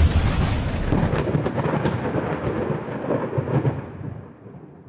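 Thunder sound effect: a rumbling roll with crackles that gradually fades away over the last second or so.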